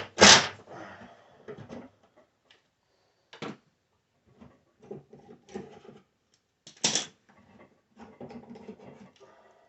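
A drill/driver runs in a short burst right at the start, driving a screw through the drawer box into the face. Then come scattered clicks and knocks of the drawer and tools being handled, with two sharper knocks about three and a half and seven seconds in.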